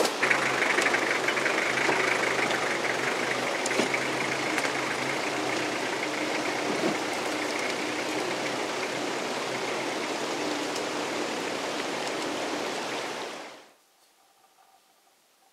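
Toyota Land Cruiser engine idling steadily, with the constant rush of a creek under it. Both cut off suddenly near the end.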